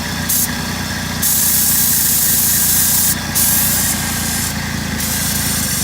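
A 2000 Saturn SW1's DOHC four-cylinder engine idling steadily while an aerosol can hisses around the throttle body, first in a couple of short spurts and then in two long sprays. This is a spray test for a vacuum leak at the throttle body gasket, which the owner suspects is letting the engine suck in air.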